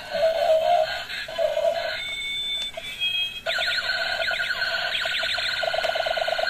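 Iron Man dancing robot toy's small built-in speaker playing tinny electronic music and sound effects: a tune, a few short beeps, then, about three and a half seconds in, a run of falling siren-like sweeps that turns into a fast pulsing alarm sound near the end.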